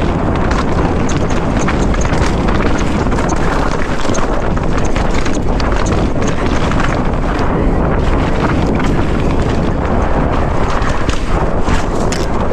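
Mountain bike riding over a rocky, loose-gravel trail: tyres crunching over stones with a constant rattle of knocks and clicks from the bike, under loud wind buffeting on the action camera's microphone.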